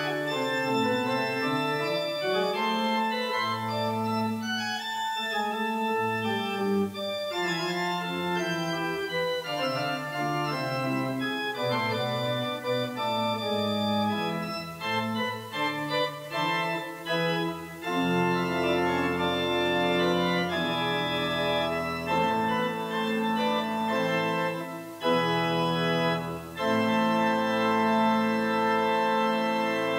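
Pipe organ playing, with a moving line over held chords. In the second half the chords are fuller and held longer, with deep bass notes beneath them.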